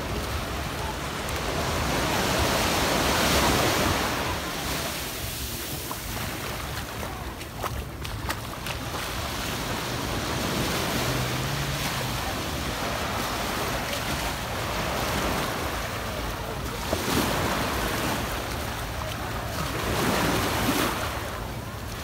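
Small ocean waves breaking and washing up a sandy beach, surging louder a few times, with wind buffeting the microphone.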